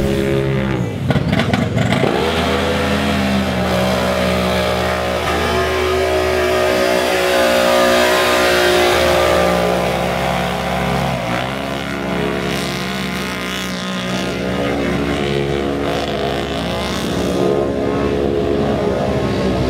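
Side-by-side UTV engines running at high revs, their pitch dropping and climbing again several times as the throttle is worked.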